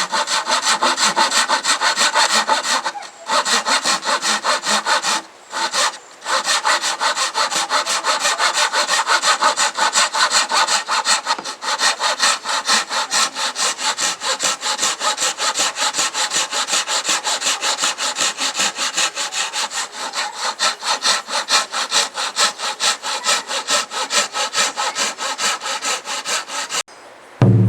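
Hand saw cutting through wood in rapid, even strokes. It pauses briefly twice in the first few seconds and stops just before the end.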